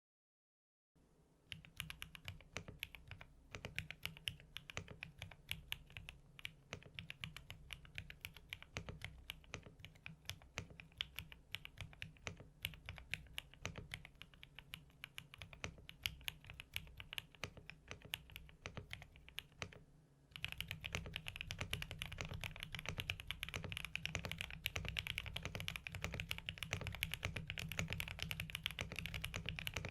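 Typing on a QK65 custom mechanical keyboard with lubed Gateron Oil King linear switches, a POM plate and PBT Cherry-profile keycaps, a build tuned for a clacky sound. Steady, dense key clacks begin about a second in, then become louder and quicker about two-thirds of the way through.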